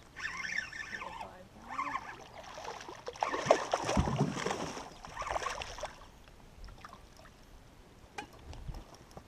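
A hooked bass thrashing and splashing at the water's surface beside the boat in several bursts over about six seconds, the biggest splash about halfway through.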